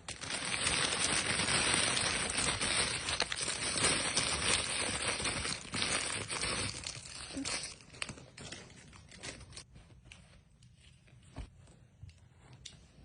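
Packaging being crumpled and torn open: a dense, crackly rustling for about eight seconds, then only scattered light clicks and rustles.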